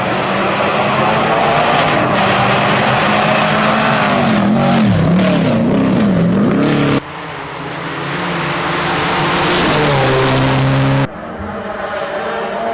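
Rally car engines at high revs, heard in a string of abruptly cut clips: an engine note that dips and climbs several times about halfway through, then engine notes rising steadily in pitch under acceleration, each broken off suddenly by the next clip.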